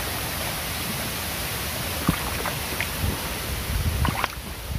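Shallow creek water running over stones: a steady, even rushing hiss, with a few faint clicks about two and four seconds in.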